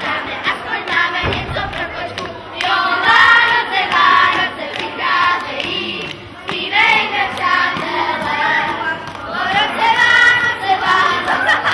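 A group of children singing together into a handheld microphone, phrase after phrase, with some hand clapping and a low thump about a second in.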